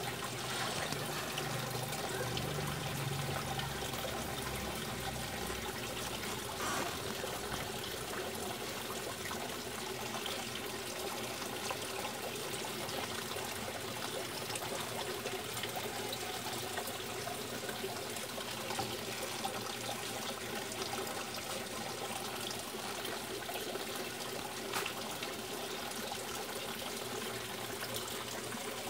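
Water splashing and trickling steadily into a fish pond, with a faint steady hum beneath.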